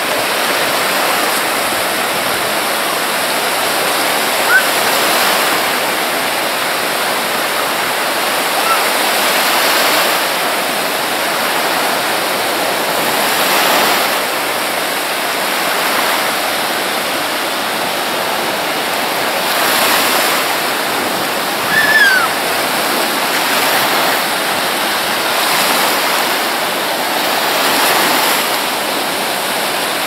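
Sea surf breaking in shallow water: a steady rushing wash that swells every few seconds as each wave comes in.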